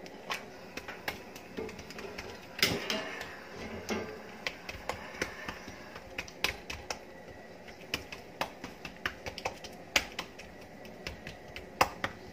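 Oiled hands patting, pressing and slapping thin msemmen dough against a hard countertop as it is spread and folded: irregular soft taps with a few sharper slaps, one about three seconds in and two near the end.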